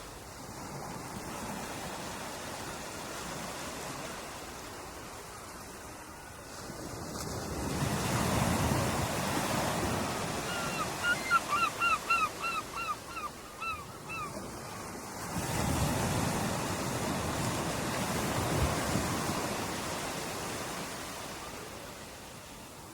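Ocean surf: waves washing in and breaking, swelling up about a third of the way in and again a little past the middle. Around eleven seconds in, a bird gives a quick run of about a dozen short calls over some three seconds.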